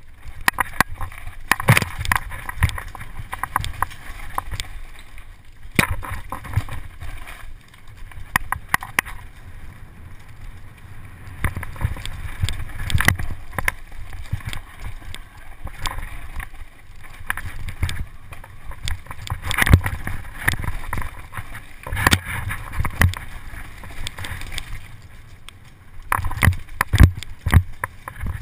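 Electric mountain bike riding fast down a rough forest singletrack: a steady rumble of tyres and wind on the microphone, broken by frequent sharp knocks and rattles as the bike hits roots and rocks, with a run of harder knocks near the end.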